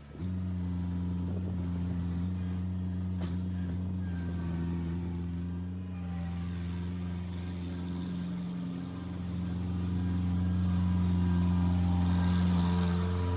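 A skid steer's swapped-in 3.3-litre Cummins four-cylinder diesel running at a steady speed. It comes in suddenly just after the start and gets a little louder in the last few seconds.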